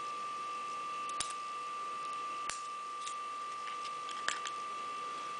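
A few sharp, separate clicks from a Victorinox WorkChamp Swiss Army knife being handled as its tweezers and toothpick are taken from the handle, over a steady high-pitched whine.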